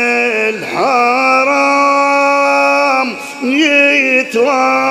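A man chanting a sad Arabic na'i lament in long, drawn-out held notes, gliding up in pitch into each new phrase.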